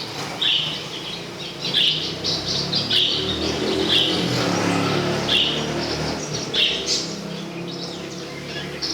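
A bird chirping over and over, a short high chirp roughly once a second.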